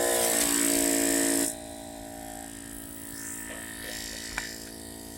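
Small portable air compressor running with a steady motor hum while it inflates a flat car tire. A loud hiss of air stops about a second and a half in, and the motor hum keeps going at a lower level.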